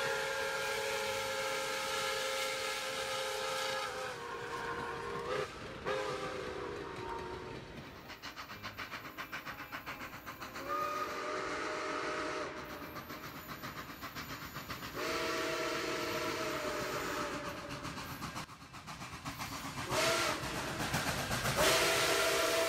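Steam locomotive whistle sounding a series of blasts, some long and some short, with several notes at once. Between the blasts there is the fast, even rhythm and hiss of the running engine.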